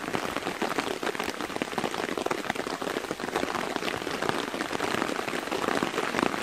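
Heavy rain falling on a DD Hammocks tarp overhead: a dense, steady patter of countless drops striking the stretched fabric.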